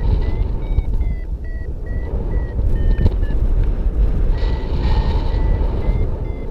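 Paragliding variometer beeping: short, evenly spaced beeps of slightly shifting pitch, about two to three a second, the climb tone that signals the glider is rising in lift. Heavy wind rumble on the microphone runs underneath.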